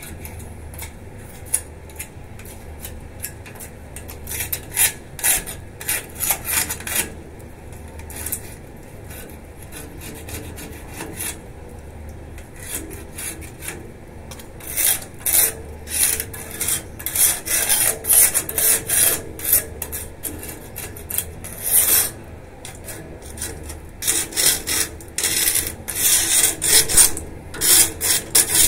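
Rasping, scraping strokes of hand work against a painted metal balcony railing, in runs of quick back-and-forth passes with short pauses between them.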